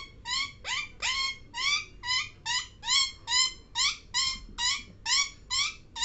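Ringneck parrot calling in a rapid, even series of short rising squawks, about three a second.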